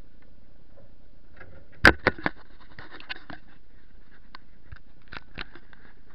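Handling noise from a small action camera being moved and repositioned: three sharp knocks close together about two seconds in, then scattered lighter clicks and scrapes against the casing.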